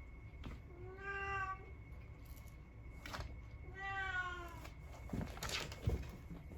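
A domestic cat meowing twice, two drawn-out calls about three seconds apart. Scuffling and a thump follow near the end.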